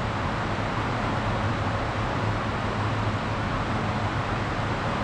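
Steady station ambience: a constant low hum under an even hiss, at a covered platform beside a standing Stadler KISS electric train.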